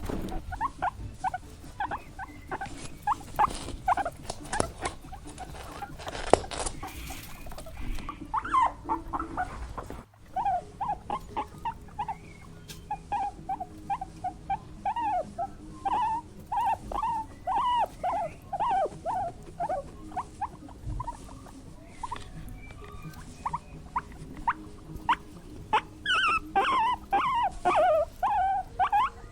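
Small animals squeaking: many short, quick high calls in rapid series, with a brief break about ten seconds in and a denser, higher-pitched run near the end.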